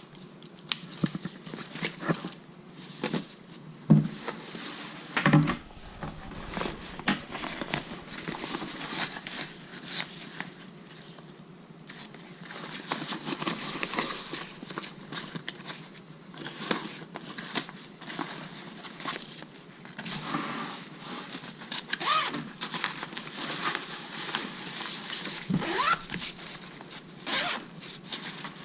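Zippers on a new travel backpack being pulled open and shut, with fabric and packaging rustling and light clicks and knocks as the bag is handled.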